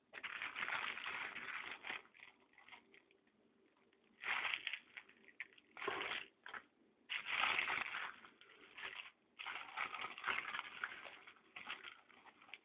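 Clear plastic packaging crinkling and rustling as it is handled, in several bursts with short pauses between them.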